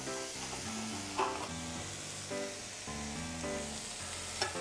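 Hot roasted cauliflower sizzling on a baking tray as a knife cuts through it, with a couple of short crisp cuts, over background music.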